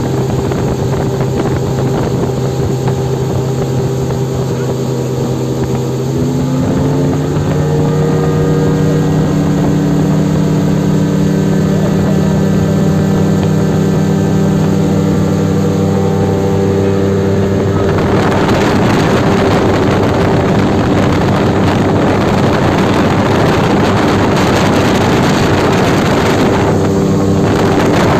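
Aluminium boat's engine running under test, its revs stepping up about six seconds in and holding there. About two-thirds of the way in a loud rushing hiss of water and wind joins the engine.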